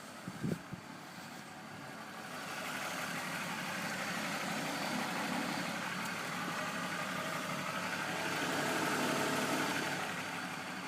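BMW M54B25 inline-six idling warm. It grows louder from about two and a half seconds in and eases near the end, with a couple of soft knocks in the first second. This warm idle is the state in which the owner hears a knock from the front right; VANOS has been ruled out, and the owner wonders whether it is the timing chain.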